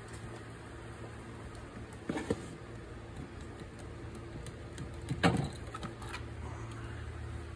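Two short knocks of hard parts being handled, a smaller one about two seconds in and a louder one about five seconds in, with a few light clicks, over a steady low hum.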